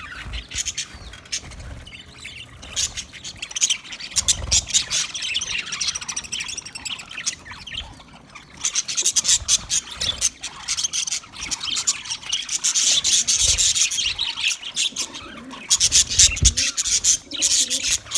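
A flock of budgerigars chattering and warbling: dense, rapid chirps and squeaks with no pauses, busiest in the second half.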